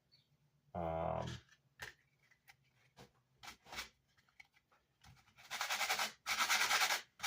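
Coarse 40-grit sandpaper rubbed by hand in steady back-and-forth strokes, a little over one stroke a second, starting about five seconds in, scrubbing leftover chipboard off the back of a grill cloth. Before that come a short hum from a voice and a few light handling clicks.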